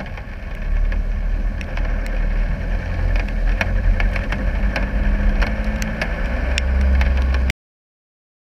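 Land Rover Discovery 300Tdi's 2.5-litre four-cylinder turbodiesel engine running as the truck wades through a deep muddy puddle, with water splashing and scattered sharp clicks and knocks. The engine gets louder toward the end, and the sound cuts off suddenly near the end.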